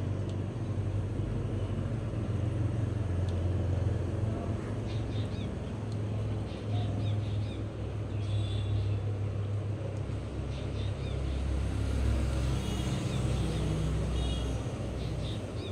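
Steady low background rumble, with a few faint high chirps in the second half.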